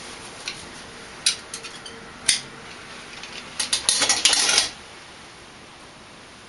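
Teflon thread-seal tape being handled and pulled from its roll around a shower arm's threads. A few sharp clicks come first, then about a second of dense crackling past the middle as the tape is torn off.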